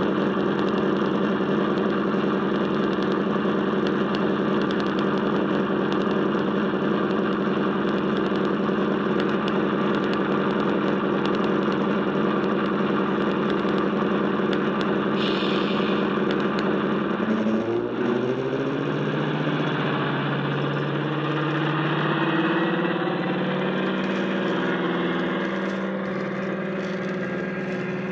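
Sound-fitted model Class 55 Deltic diesel locomotive: the DCC sound decoder's recorded Deltic engine sound, played through the loco's speakers, running steadily. About two-thirds of the way in, the engine note drops and shifts, then slowly climbs again.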